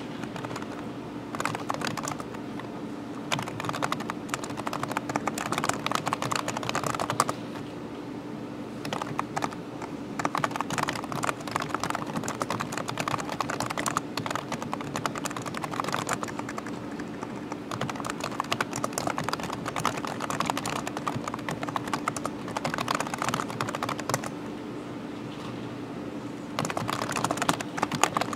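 Fast typing on a computer keyboard: rapid key clicks in long runs with a few short pauses, over a steady low hum.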